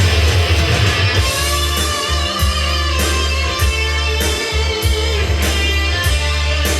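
Guitar-driven music with a heavy bass line and a steady beat, played loud from CD through a pair of 1980s Fisher CX-100 three-way bass-reflex speakers with 10-inch woofers.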